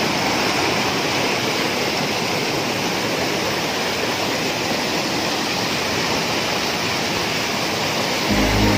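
Waterfall pouring over rock into a pool: a steady rush of falling water. Music comes in just before the end.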